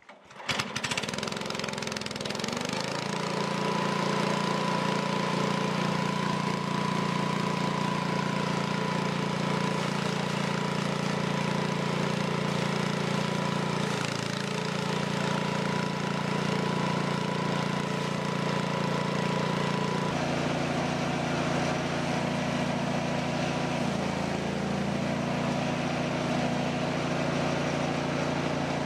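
Small petrol engine of a Bolens chipper-shredder starting up within the first second and then running steadily at working speed, with a steady whine over it that stops about two-thirds of the way through.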